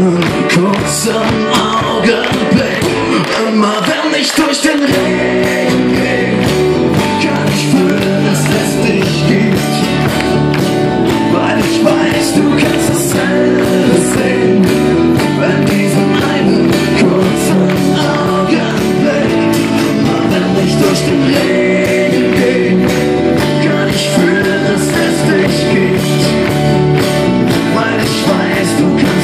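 Live acoustic band: strummed acoustic guitars, keyboard and a cajón keeping a steady beat, with singing.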